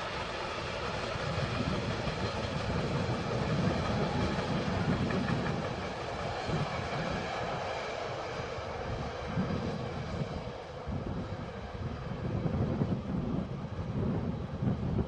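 A train running on the tracks, a continuous rumble that swells and eases.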